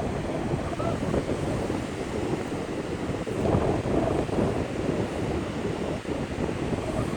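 Strong wind buffeting the microphone on a beach, a loud rumbling noise that gusts and eases unevenly.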